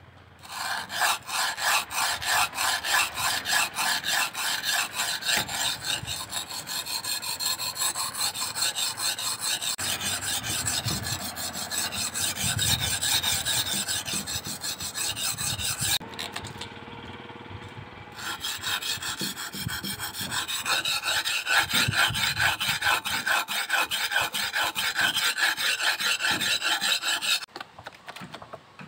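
Steel blade of a jungle survival knife being stroked fast back and forth across a flat sharpening stone, a rapid, steady scraping rhythm as the edge is sharpened. The strokes ease off briefly about halfway through, resume, and stop shortly before the end.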